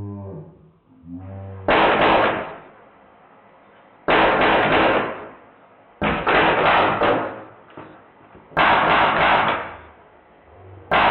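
Drozd Blackbird BB gun, fitted with a Sergey board and running on high-pressure air, firing five short full-auto bursts about two seconds apart. Each burst is a rapid rattle of shots lasting about a second.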